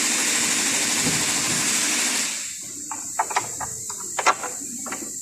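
A steady hiss that stops about two seconds in, followed by a scattering of sharp clicks and knocks.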